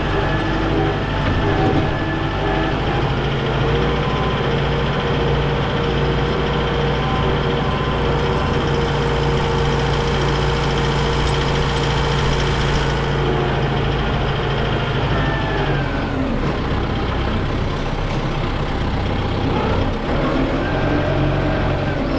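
Diesel tractor engine running steadily, its revs dropping about two-thirds of the way through and picking up again near the end.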